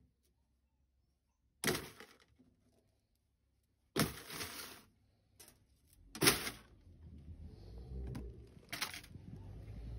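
Lengths of stripped copper cable core dropped into a plastic crate: four sharp clattering knocks about two and a half seconds apart.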